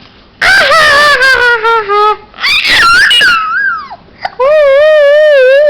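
Three long, wavering wailing cries from one voice. The first slides slowly downward; the last is held on one wavering pitch and then falls away at the end.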